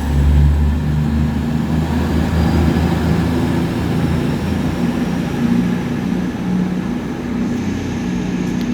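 A heavy diesel vehicle engine running steadily, a loud low rumble that eases slightly after the first second or so.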